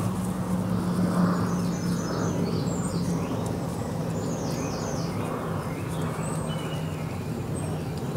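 Songbirds chirping in the background, with a quick run of short falling notes about two seconds in, over a steady low noise.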